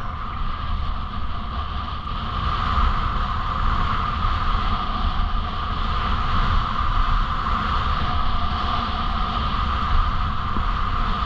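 Wind rushing over the camera microphone during a downhill ski run, with a deep buffeting rumble, and the steady hiss of skis sliding over packed, groomed snow.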